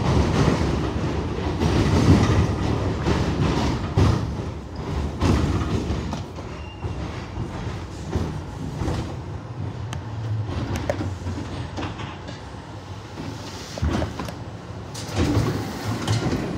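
R62A subway train running along the track, wheels rumbling and clacking over the rail joints with occasional sharp knocks. It is louder for the first five seconds or so, then settles quieter.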